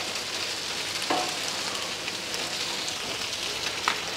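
Cooking oil sizzling on a hot steel flat-top griddle as a metal spatula spreads it across the surface. There is a steady hiss, broken by two short clicks: one about a second in and one near the end.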